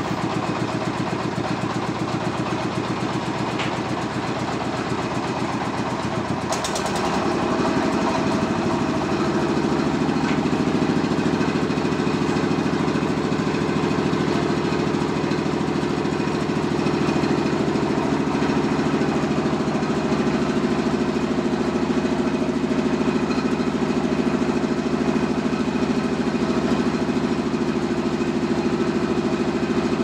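A sawmill's engine running steadily. About seven seconds in its note shifts and it grows a little louder, then runs on evenly, with a short click as it changes.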